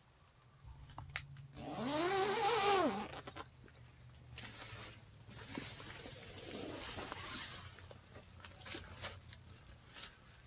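A zipper pulled twice: a loud rasping zip about two seconds in, its pitch rising and falling with the pull, then a softer second zip, followed by a few light clicks.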